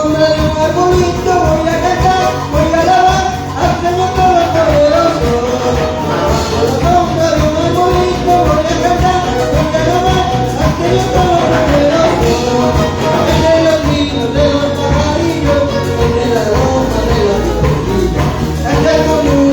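Latin American-style worship band music, a wavering lead melody with singing over a steady beat with percussion.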